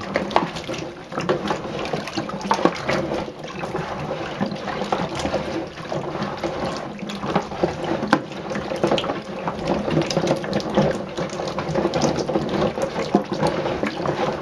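Black walnuts in their shells swirled around in dirty water in a stainless steel sink with a scrub brush and gloved hands: a continuous dense clatter of nuts knocking against each other and the metal sink, with sloshing water. The knocking is dull because the shells are still coated in black gunk from the hulls.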